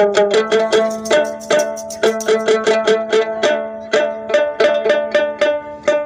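A small long-necked plucked lute playing an instrumental run of quick single notes, about four plucks a second, over a steady low drone note.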